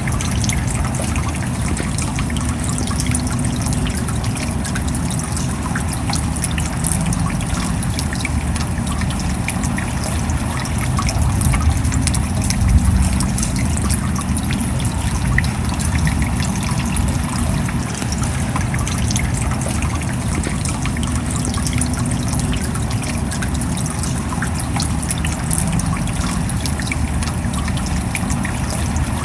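Steady rain falling, with many separate drop ticks over an even wash of water noise.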